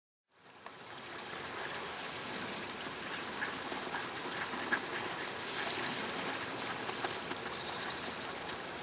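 A large flock of ducks on a pond, many quacking at once over the sound of the ducks moving in the water, fading in just after the start.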